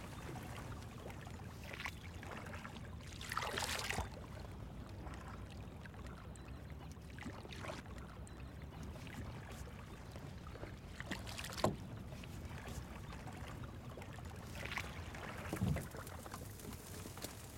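A small boat being poled through water: the pole swishes and splashes at each stroke over a steady low wash. There is one sharp knock a little past the middle.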